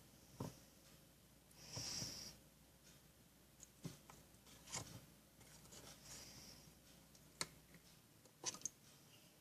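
Faint stirring of a thickening glue-and-borax slime: a spoon scraping softly and clicking now and then against the container, a few separate clicks spread through.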